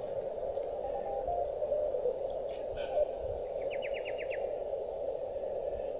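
Xiegu G90 HF transceiver's receiver audio on 40 meters: steady band noise through a narrow CW filter while tuning for stations. A faint short Morse tone comes through about a second in, and a quick run of about seven high ticks sounds a little past the middle.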